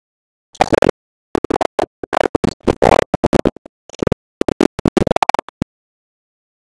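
A man's voice in a string of short phrases from about half a second in until just past five and a half seconds, cut to dead silence between phrases as if by a noise gate.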